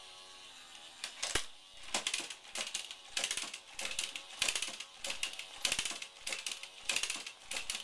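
Rapid, irregular clicking and clattering of small hard objects being handled, in quick bursts several times a second, starting about a second in.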